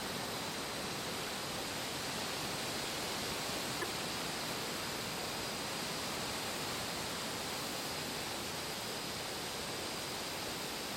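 Steady, even rushing noise of an autumn ambience soundscape, unchanging throughout, with one faint click about four seconds in.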